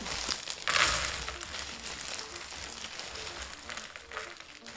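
Plastic bag crinkling as cardboard jigsaw puzzle pieces are poured out of it onto a table. The pieces come out in a loud rush just under a second in, then keep trickling and sliding out more quietly.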